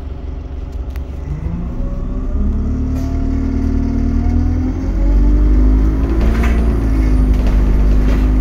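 Alexander Dennis Enviro 200 bus pulling away, heard from inside the saloon: the engine note rises in pitch about a second in, then levels off while the low rumble grows louder.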